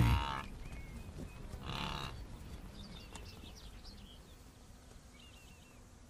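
Wildebeest calling with low, lowing grunts: one right at the start and a shorter one about two seconds in. Faint bird chirps follow in the last few seconds.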